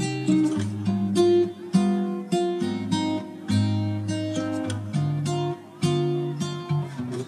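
Background music: an acoustic guitar playing a run of plucked notes and chords, each note sounding sharply and fading.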